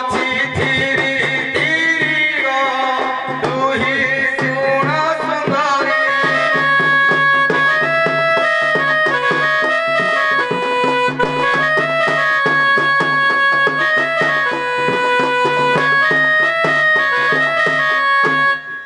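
Traditional Indian folk music: a melody of held notes stepping up and down over a steady drone, with fast tabla-style drumming underneath. The tune is more ornamented and gliding in the first few seconds.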